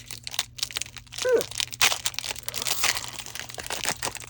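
Foil wrapper of a Pokémon trading-card booster pack crinkling and tearing as it is pulled open by hand, an irregular crackle of plastic foil.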